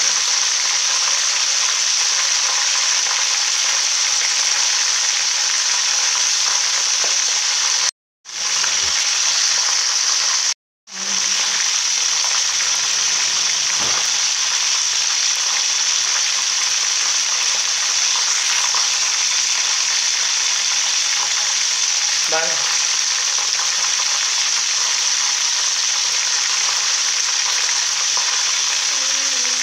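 Whole chicken frying in hot fat in a large aluminium pot, a steady sizzle. It breaks off twice into brief silence, around eight and eleven seconds in.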